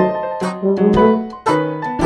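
Outro background music played on a keyboard or piano, with notes struck in quick succession.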